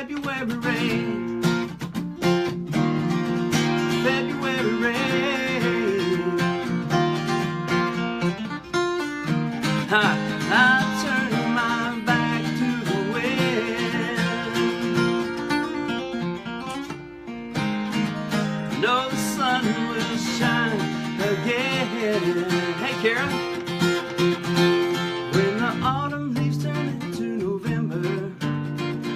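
Acoustic guitar playing a solo passage of a country-pop song, strummed and picked chords with a few bending melody notes.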